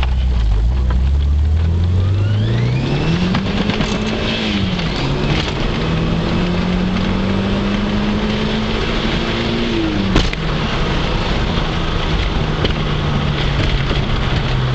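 Turbocharged DSM engine accelerating hard under boost, its pitch climbing, dropping at gear changes about 4.5 and 10 seconds in, then holding steady. A thin rising whine shows near the start. Under boost there is a buzzing noise that sounds like a kazoo, which the driver thinks may be a valve.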